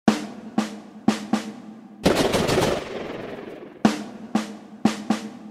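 Intro music made of sharp, separate snare-drum hits, with a longer crash about two seconds in that fades over roughly a second.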